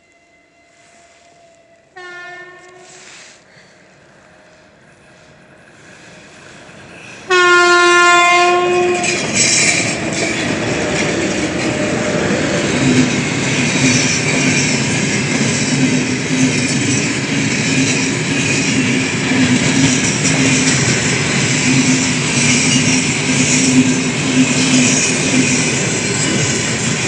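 Horn of a 3ES5K "Ermak" electric locomotive, a short blast about two seconds in and a longer, much louder blast about seven seconds in, sounded by the friendly crew as a greeting. The freight train then passes close by: a steady loud rumble of wheels and wagons with clickety-clack and a continuous hum.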